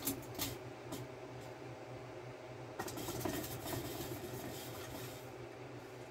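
Harbor Breeze Typhoon ceiling fan running on high speed: a steady motor hum under a rush of moving air. There are a few sharp clicks in the first second, and the air rush grows stronger from about three seconds in until just past five.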